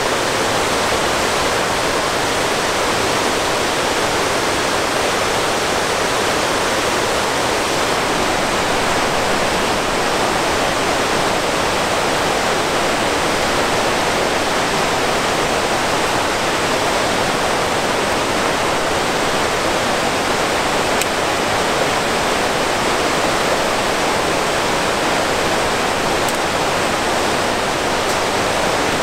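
Waterfall rushing, a loud, steady, even noise of falling water.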